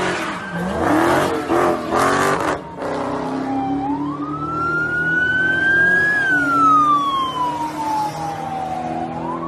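A car engine revving in short bursts for the first two to three seconds. Then a police siren wails in one slow rise and fall over the steady hum of an engine.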